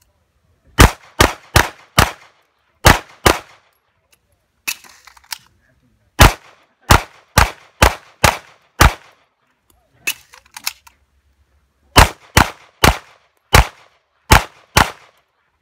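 Handgun fired in rapid strings of shots, about eighteen in all: a group of four, then two, then two groups of six, each shot a sharp crack. Faint knocks come between the strings.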